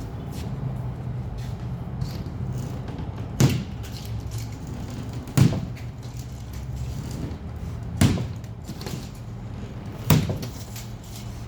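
Four heavy thumps, about two to two and a half seconds apart, over a steady low hum.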